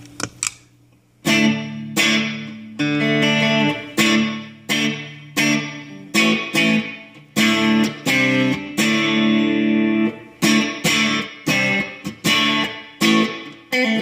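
Telecaster electric guitar through a Vox AC15 amp, strumming chords in a steady rhythm that starts about a second in, a new strum roughly every 0.7 s, each dying away quickly. The guitar begins dry with the reverb pedal bypassed.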